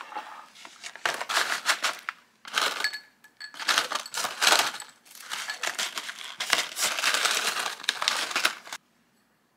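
Crinkling and crunching in several bursts of rapid crackles, stopping suddenly near the end.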